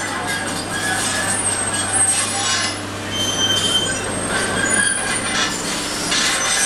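Construction machinery running on a building site, with repeated short high squeals and screeches over a steady low engine hum.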